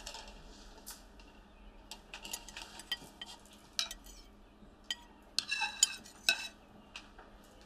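Metal spoon stirring in a bowl, with scattered light clinks against its side and a quick run of louder clinks about two-thirds of the way through.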